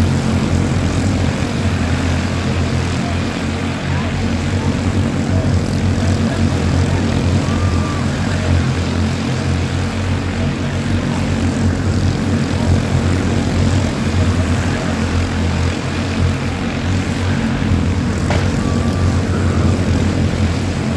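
A pack of quarter midget race cars with small single-cylinder Honda engines running laps together, their engines blending into one steady sound.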